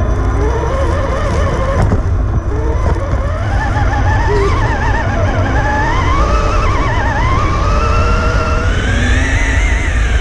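RC crawler's electric motor and gearbox whining, the pitch rising and falling continuously as the throttle changes, over a steady low rumble from the drivetrain and tyres on rough ground. A single sharp knock comes about two seconds in.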